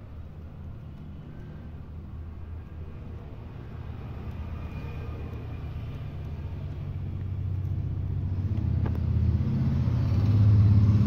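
Low engine rumble of a passing motor vehicle, growing steadily louder and loudest near the end.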